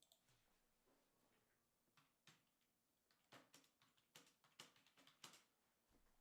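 Near silence with faint computer mouse clicks, a few sparse ones early and a quicker cluster in the second half, as a randomizer is run again and again.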